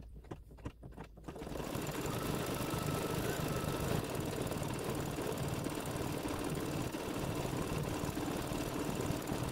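An embroidery machine starts up about a second and a half in and runs steadily, stitching out a design. A few light clicks come just before it starts.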